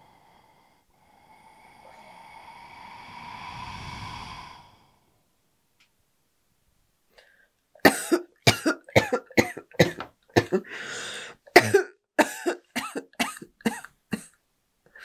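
A woman coughing hard in a long fit of rapid, harsh coughs, with a brief catch of breath midway; her throat is sore. Before the fit a swelling hiss rises for a few seconds and stops.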